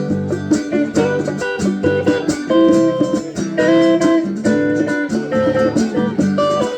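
Live band playing an instrumental break: a guitar melody over a steady drum beat, with no singing.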